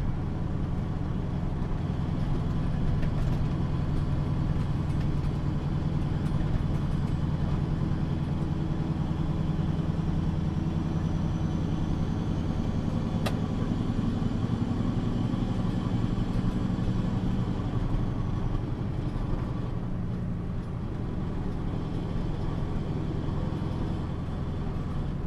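Septic truck's engine running steadily under way, heard from inside the cab, with one sharp click about halfway through.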